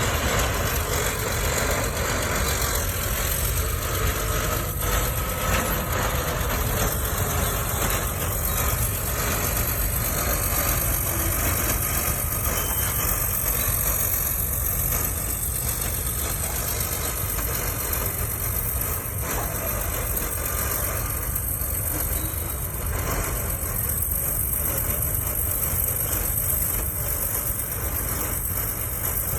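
Caterpillar D9 bulldozer's diesel engine running steadily under load as it pushes.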